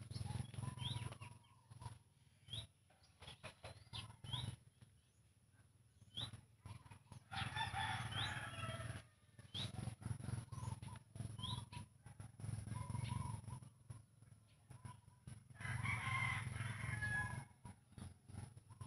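A rooster crowing twice, each crow about a second and a half long, one near the middle and one near the end. Short, high, rising chirps from other birds and scattered clicks come in between.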